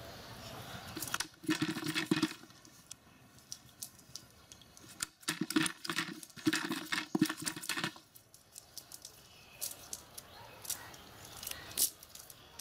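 Live fish flapping against the sides of a plastic bucket: bursts of rapid slapping and knocking, once about a second in and again around the middle, with a few lighter knocks near the end.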